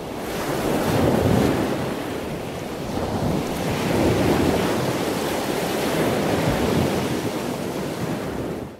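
Ocean waves surging and washing, swelling twice, then cutting off suddenly at the end.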